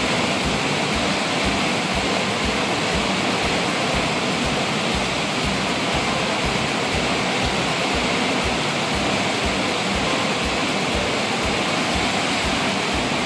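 Floodwater released from a dam, rushing out beneath the wooden structure and churning through white-water rapids in a steady, loud rush.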